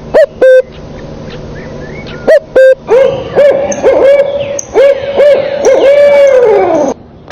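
An animal calling in a run of loud hooting notes, some short and some held, with a long call near the end that slides down in pitch.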